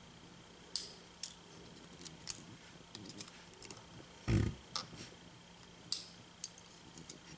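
Small metal lock parts and tools clicking and tapping as a padlock core is taken apart: a scattered series of sharp light clicks, with one duller knock about four seconds in.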